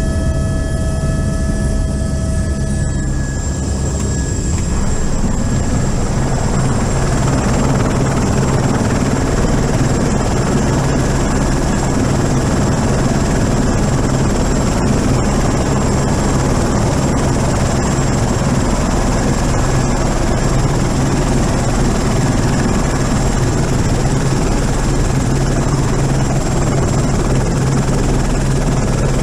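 Helicopter turbine and rotor running steadily on the ground, heard from inside the cabin. A high whine in the first few seconds steps down slightly about three seconds in, then a fuller, steady rush of rotor and engine noise holds to the end.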